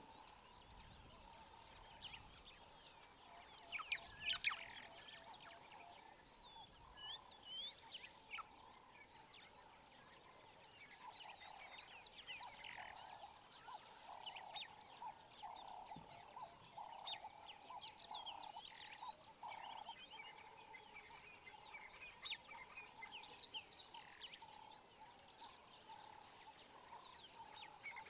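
Faint chorus of frogs calling, a steady pulsing croak, with many small birds chirping over it; a louder cluster of bird calls about four seconds in.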